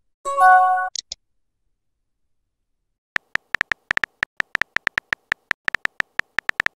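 Messaging-app sound effects: a short notification chime right at the start, a pause of about two seconds, then a rapid run of keyboard typing clicks from about three seconds in.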